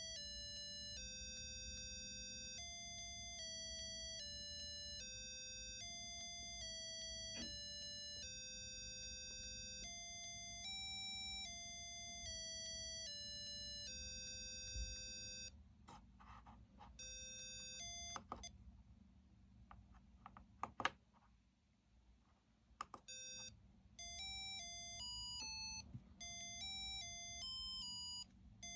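A small speaker driven by a TI Tiva C Series LaunchPad microcontroller plays a melody of electronic beeping tones, each note about half a second long. The tune stops about halfway through, leaving a few clicks. Near the end it starts again with shorter, quicker notes.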